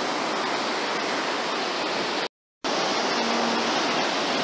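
Ocean surf breaking on a beach: a steady rushing wash of water. The sound drops out completely for a moment about two and a half seconds in, then the surf resumes.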